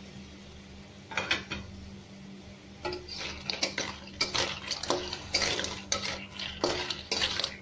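Metal spatula scraping and clattering in a wok while clams and crabs in their shells are stirred, the shells knocking against the metal. A couple of knocks come early, then stirring runs steadily from about three seconds in.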